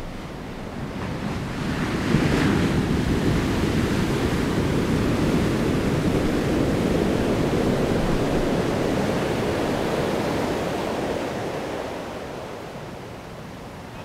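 Ocean waves breaking on a sandy beach. A wave crashes about two seconds in, then the surf washes in a steady rush that fades away near the end.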